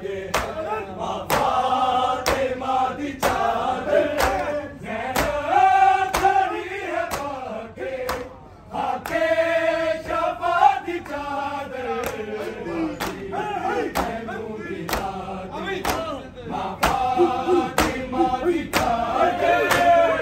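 Men chanting a noha, a Shia lament, in unison, with sharp strikes in a steady beat about once every 0.8 seconds, as is usual for matam, the rhythmic chest-beating that keeps time with the chant.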